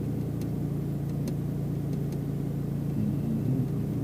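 Steady engine and road hum inside a Mitsubishi Pajero Mini's cabin as it drives along, with faint ticks about once a second.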